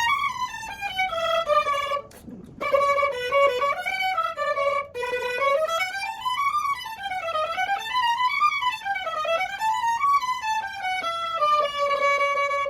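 Solo violin playing quick runs that climb and fall, with a brief break about two seconds in, ending on a held note.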